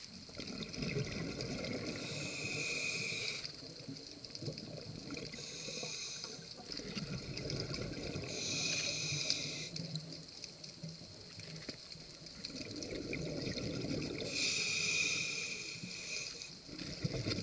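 A scuba diver breathing through a regulator underwater: four hissing inhalations with a faint whistling tone, alternating with low bubbling exhalations.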